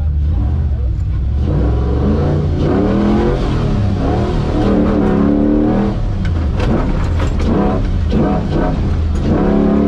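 Competition 4x4 winch truck's engine heard from inside the cab, revving up and down several times over its steady low running as the truck drives on.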